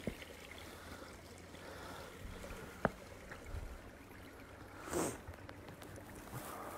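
Faint steady rushing hiss of outdoor night ambience, broken by a single sharp click about three seconds in and a short, loud rushing burst about five seconds in, like a brush or breath against the microphone.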